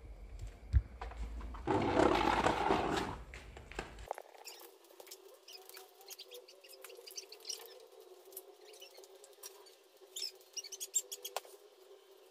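Handling noise while a home-made wooden speaker box is wired up: a rustling burst about two seconds in, then faint scattered clicks and small squeaks as cable plugs are pushed into the speaker's terminals and the amplifier controls are worked.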